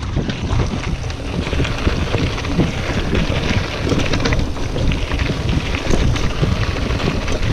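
Wind buffeting the microphone of a camera on a single-speed Specialized Crave SL hardtail mountain bike riding fast down a dirt trail, with the tyres running over dirt and rocks and many small knocks and rattles from the bike.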